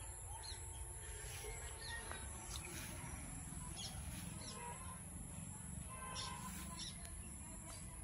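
Birds chirping now and then, short quick calls scattered throughout, over a low steady rumble.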